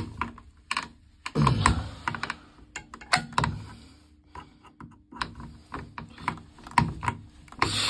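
Insulated screwdriver tightening the screws of an electric shower's terminal block: irregular clicks and short scrapes as the blade turns in the screw heads. The connections have worked loose and are being tightened up.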